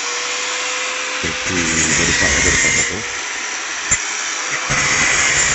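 A power tool running steadily in a workshop: a loud hiss with a steady whine under it, and men's voices talking low beneath it.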